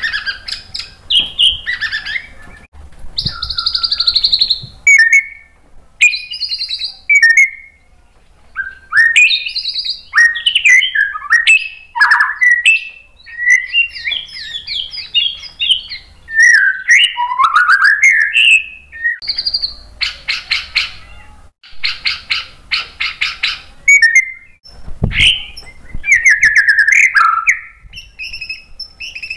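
White-rumped shama singing a loud, varied song of clear gliding whistles broken by fast chattering rattles, the longest rattles about two-thirds of the way through.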